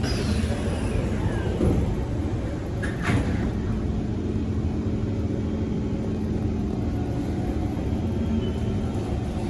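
Kawasaki Heavy Industries C151 metro train's sliding doors closing, with a falling sweep of sound as they move and a thud about three seconds in as they shut. After that comes the steady hum of the train standing at the platform.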